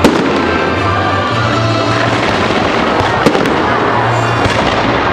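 Fireworks going off over music with a steady bass line: a sharp bang right at the start and another about three seconds in.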